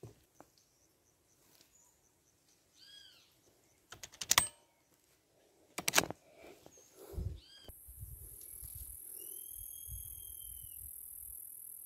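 Beeman 1336 break-barrel air rifle: two sharp clacks, one about four seconds in and one about six seconds in. Bird calls rise and fall around three and ten seconds in.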